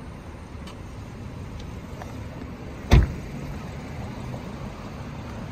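Car door of a 2014 BMW 428i Convertible shut once about three seconds in, a single heavy thud, over a low steady hum.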